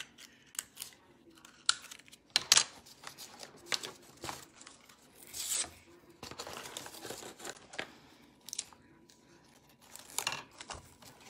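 Tape being pulled off and torn while cardboard triangles are handled: short rips and rasps mixed with clicks and light taps of cardboard on the table, with a longer rasp about halfway through.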